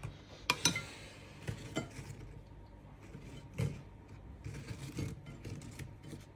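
Crisp piped butter cookies being picked up and shuffled in a ceramic bowl: several light clicks and clinks, then soft scraping and rustling of the cookies against each other and the bowl.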